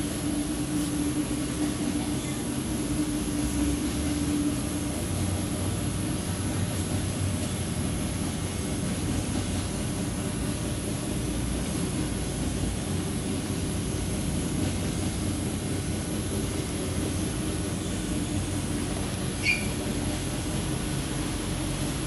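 Steady mechanical hum and air noise of an industrial building, with a faint steady tone during the first few seconds and one brief high chirp about twenty seconds in.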